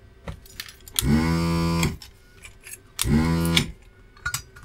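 Electric desoldering gun's vacuum pump running in two bursts, about a second long and then half a second, sucking molten solder out of through-holes in a circuit board; each burst rises in pitch as it starts and sags as it stops. Small clicks come between the bursts.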